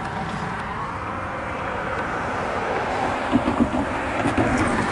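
An approaching CN freight train, heard as a steady distant rumble under wind buffeting the microphone, with a few short low knocks near the end.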